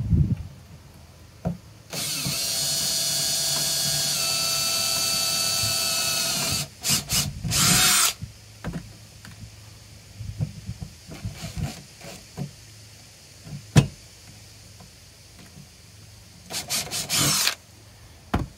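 Cordless drill boring through a sheet-metal vehicle floor. It gives one steady high whine of about four and a half seconds, starting about two seconds in, then a few short bursts. Scattered clicks and knocks follow, and a pair of short bursts comes near the end.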